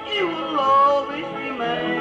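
Live bluegrass band playing an instrumental break: a lead line sliding between held notes over banjo, guitar and bass.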